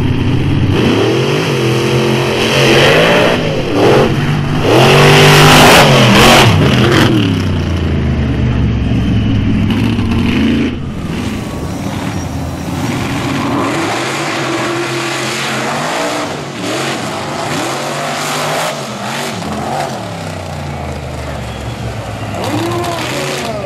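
Mega truck engines revving hard under full throttle, the pitch climbing and falling with each gear and burst of speed, loudest a few seconds in. About eleven seconds in the sound drops off suddenly to lower engine running with occasional shorter revs.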